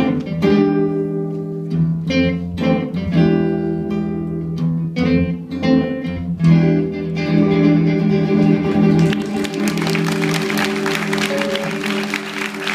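A small guitar ensemble of archtop hollow-body and acoustic guitars strums chords together, then ends on a final chord left to ring. Applause breaks out about nine seconds in, over the fading chord.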